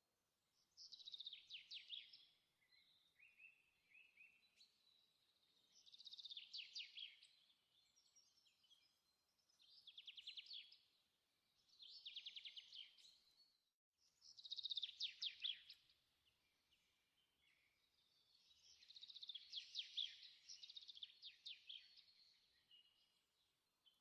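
Faint songbird singing: high, rapid trilled phrases of one to two seconds, repeated every few seconds.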